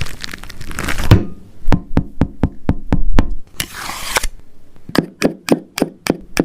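Sound effect of sharp knocks in quick succession, about three or four a second, in two runs with a short rushing noise between them.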